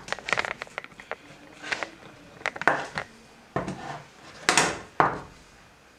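Wooden dowel rods knocking, clicking and scraping as they are handled and pushed into a soft silicone connector node on a workbench: a run of irregular clicks and short rubbing scrapes, dying away in the last second.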